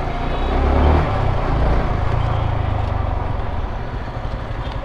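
Yamaha R15 V4's 155 cc single-cylinder engine running while the bike is ridden, a steady rapid low pulsing that swells to its loudest about a second in and shifts again around two to three seconds in.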